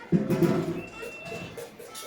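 Townspeople's eclipse din of shouts, whistles and hoes and machetes being struck, the customary noise made to save the moon: a loud burst of noise just after the start, then a brief high whistle.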